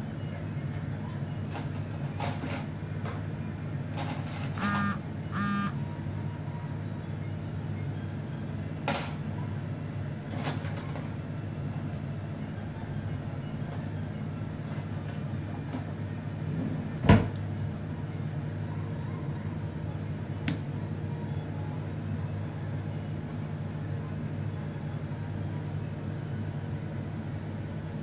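A steady low hum under scattered knocks and clicks. Two short squeaky sounds come about five seconds in, and a single sharp thump, the loudest sound, comes about seventeen seconds in.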